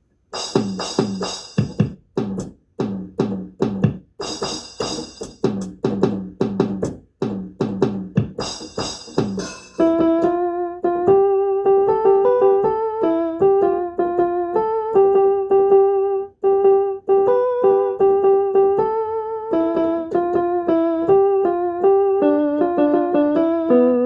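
Electronic keyboard being played: for about ten seconds, short, bright chords struck in quick repeated groups. Then it changes to a melody of held notes with a slight wavering vibrato.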